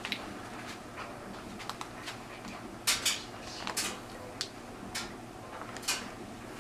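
Ceiling fan motor and its cardboard and styrofoam packing being handled in the box: scattered knocks, clicks and rustling scrapes, loudest about three seconds in.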